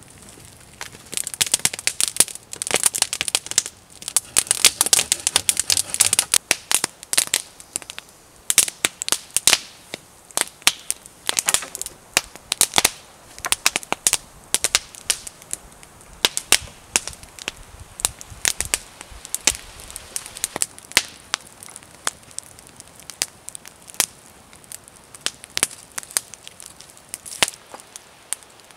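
Sharp crackling and snapping, dense for the first several seconds, then thinning out to scattered single pops and clicks.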